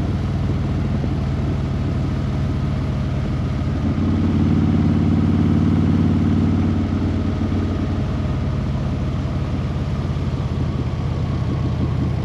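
A vehicle engine running steadily, growing louder for about three seconds from around four seconds in, then settling back.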